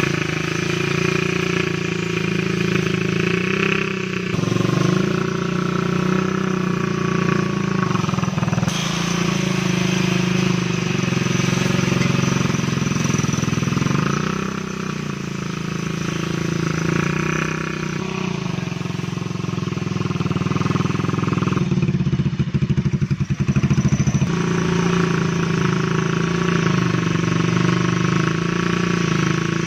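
Small engine of a homemade two-blade grass cutter running steadily, its speed rising and falling a little. Between about 22 and 24 seconds in there is a rapid rattling clatter.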